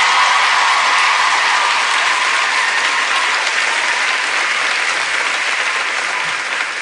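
Studio audience applauding loudly, easing off slightly toward the end.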